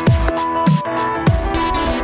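Electronic music with a steady beat: deep kick drums about every 0.6 seconds under sustained synth chords.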